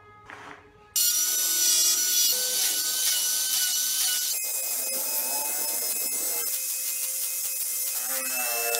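Handheld rotary tool with a small burr, running at high speed and grinding tread grooves into a wooden toy-car wheel: a steady high whine over grinding noise that starts about a second in, its tone shifting about four seconds in.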